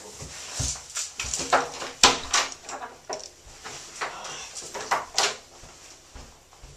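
A door being unlatched and swung open, with a string of clicks, knocks and rustles and footsteps as someone walks through it; the sharpest knock comes about two seconds in.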